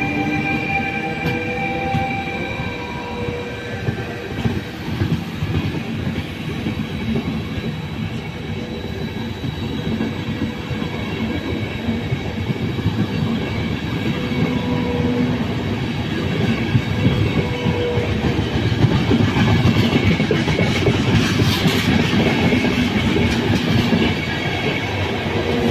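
Intercity passenger train rolling past at close range, its coaches' wheels rumbling and clattering over the rail joints. A rising electric whine from the E464 locomotive fades out over the first few seconds, and the clatter grows denser and a little louder toward the end.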